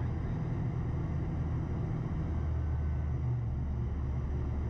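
Pipistrel Velis Electro, a battery-powered two-seat trainer aircraft, flying low overhead: a steady low hum from its electric motor and propeller, with no combustion-engine noise.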